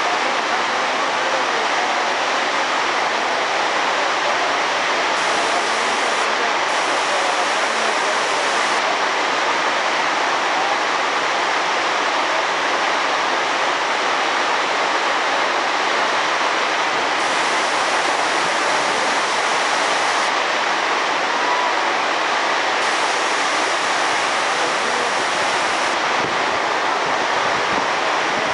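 Torrential rainstorm: heavy rain pouring down in a steady, loud hiss.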